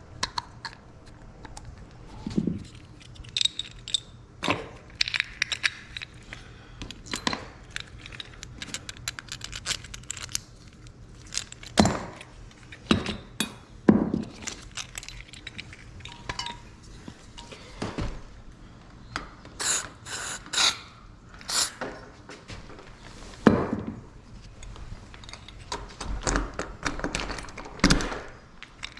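Irregular clicks, clinks and knocks of small metal lock parts being handled and fitted together, with short scraping rattles and a few louder knocks.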